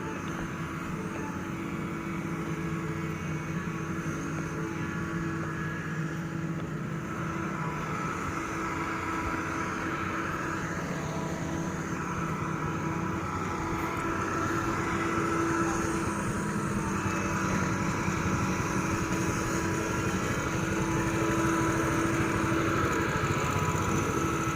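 Diesel engine of a heavy earthmoving machine running steadily under work, getting a little louder about halfway through.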